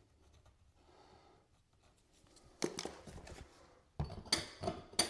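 Hand tools being handled against a drywall while the wall is marked for a cut. A sharp knock comes about halfway, then scattered clicks and scrapes, and a quick run of taps and scraping near the end.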